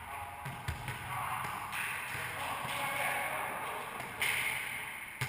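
Wallyball rally: the ball is struck and slams off the court walls, with sharp hits about a second in and twice near the end, echoing in the enclosed racquetball court.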